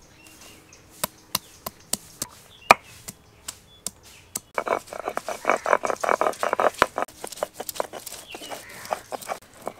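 Ginger and garlic being crushed and ground with a stone muller on a flat grinding stone: a series of separate sharp knocks, then from about four and a half seconds a dense run of quick back-and-forth grinding strokes lasting about three seconds, then more scattered strokes.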